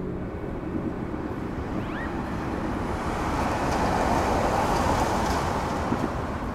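A swelling wash of rushing noise in the outro of an electronic track. It builds to a peak about four to five seconds in and then eases, with a faint rising whistle about two seconds in.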